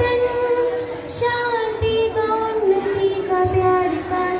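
A girl singing a Bengali song solo into a microphone over a PA loudspeaker, holding long notes that slowly drift down in pitch.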